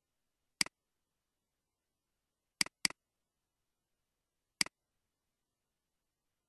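Computer mouse button clicks: a single click, then a quick double click about two seconds later, then another single click, each with a short press-and-release snap, with silence between them.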